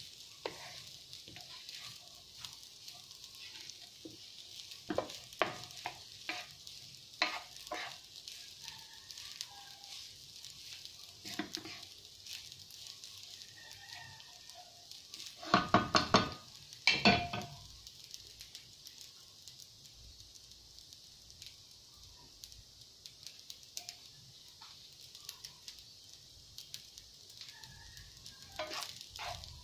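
Fried rice sizzling steadily in a nonstick frying pan while a wooden spatula scrapes and taps the pan, stirring it. About halfway through, a loud pitched call sounds twice in quick succession.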